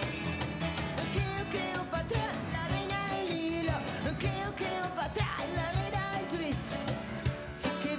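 Live rock-blues band playing: sung vocals over electric guitar and a steady cajón beat.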